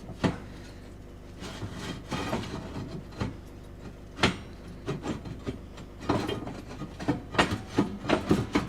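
Knocks, clunks and scraping rattles of a stove's inner side plate being worked at to get it out, a few at first and then a quick run of clunks in the last few seconds.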